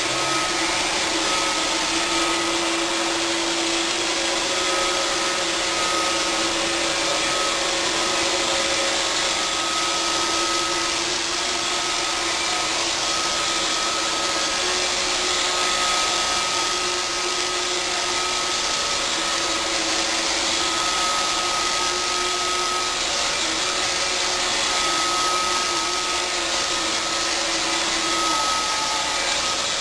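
Roomba robot vacuum cleaner running in spot-cleaning mode: an even whirring with a steady hum.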